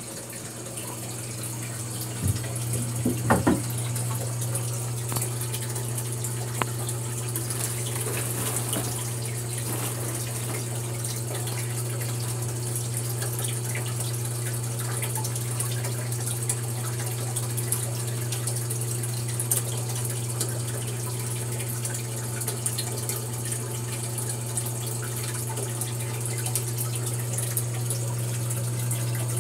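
Homemade canister filter running: water from its return hose splashes and trickles into the terrarium pool over the steady low hum of the filter pump. A few brief knocks come about two to three seconds in.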